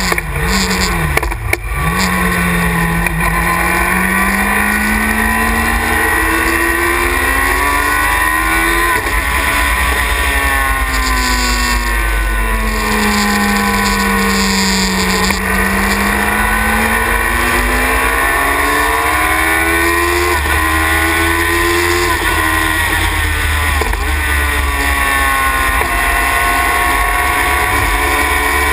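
Yamaha R1 four-cylinder motorcycle engine in a Sylva Phoenix race car, heard from the cockpit at racing speed. The engine note climbs steadily through the revs for several seconds, then falls away as the car slows for corners, and this happens more than once. A steady low rumble of wind and road noise runs underneath.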